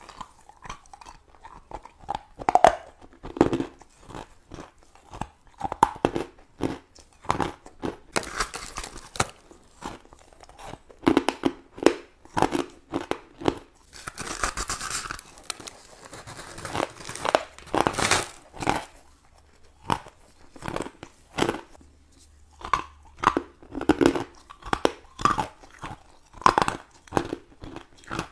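Repeated crisp crunching bites into a large slab of frosty refrozen purple ice, with chewing of the mouthfuls in between. There are many sharp crunches, with denser crackling spells about eight seconds in and again around fifteen seconds in.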